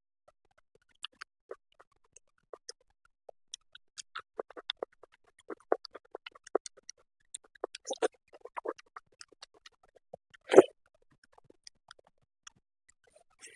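Close-miked eating sounds: scattered small wet mouth clicks and chewing, with one louder bite or crunch about ten and a half seconds in.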